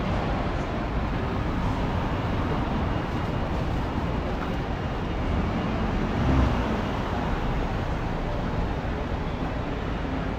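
City street traffic: a steady low rumble of passing vehicles, swelling briefly a little past halfway.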